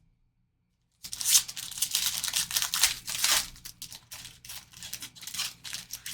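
A football trading-card pack's wrapper being opened: a loud crackling tear starts abruptly about a second in, then breaks into a run of shorter crinkles as the wrapper is pulled apart.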